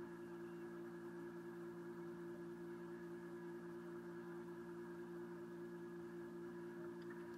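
A steady hum made of several fixed tones, unchanging throughout.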